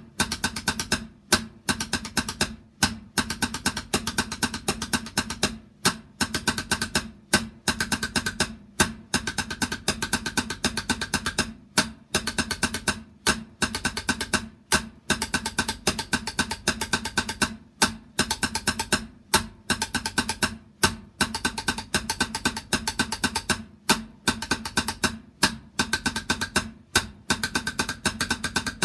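Drumming: fast runs of strokes on a drum, broken by short pauses about every second and a half, with the drum's ring sounding under the strokes.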